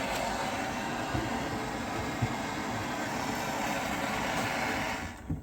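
Steady rushing hiss of a gas torch flame heating a connecting rod's small end so the wrist pin can slide in, shut off about five seconds in.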